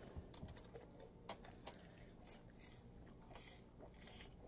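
Near silence: room tone with a few faint, scattered ticks.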